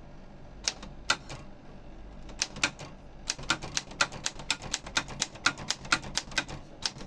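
Olympia SF De Luxe manual portable typewriter being typed on: a few keystrokes about a second in, a short pause, then a steady run of keystrokes at about three to four a second.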